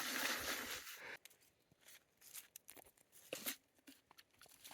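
Snow being crunched and scraped while a slushie is made, a dense crunching for about the first second, then a few faint scattered crunches and clicks.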